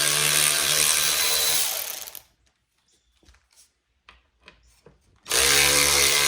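Power drill/driver backing out the screws of a hedge trimmer's gear cover: the motor runs at a steady pitch for about two seconds, stops for a pause with a few faint clicks, then runs again near the end.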